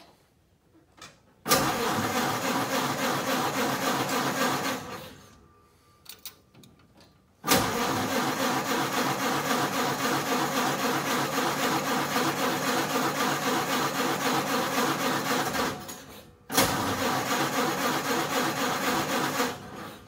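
Ford Model A four-cylinder engine being turned over by its electric starter in three stretches of cranking, lasting about three, eight and three seconds, without catching: the engine will not start.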